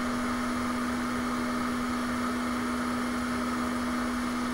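Hot air rework station blowing during board rework: a steady hum with a constant low tone.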